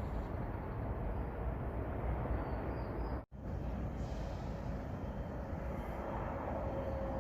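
Steady low rumble of road traffic, which cuts out for an instant about three seconds in.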